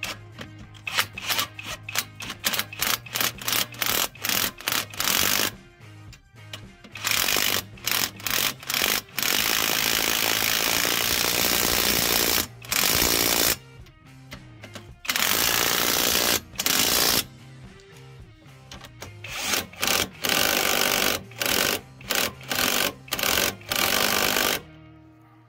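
Cordless Einhell impact wrench hammering as it tightens the nuts on the bolts clamping a front shock absorber strut to the steering knuckle: many short bursts at first, then several longer runs of one to three seconds.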